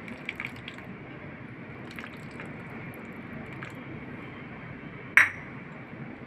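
Lemon juice poured from a small stainless-steel cup onto spice powders in a steel plate, with a few light ticks. About five seconds in comes one sharp, ringing metallic clink.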